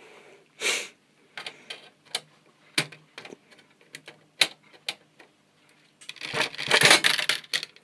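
Scattered sharp clicks and snaps of pliers gripping and pulling small white plastic push-in plugs out of a UPS's metal cover panel, with a longer, louder stretch of handling noise near the end.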